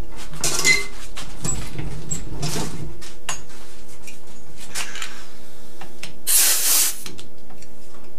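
Pistol grip compressed-air blow gun fired in several short blasts of hissing air, the longest and strongest near the end, as the repaired nozzle is tested for full air flow. Scattered sharp clicks run throughout.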